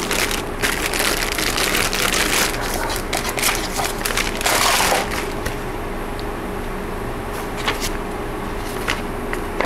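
Clear plastic packaging bags crinkling and crackling as bagged LED light strips and wiring are handled, busiest in the first half and thinning to scattered crackles after.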